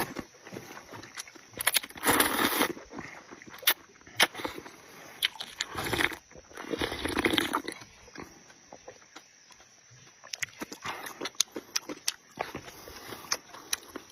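Close-miked eating of rice noodles and pork intestines: wet chewing and lip-smacking with sharp mouth clicks, broken by several longer slurps.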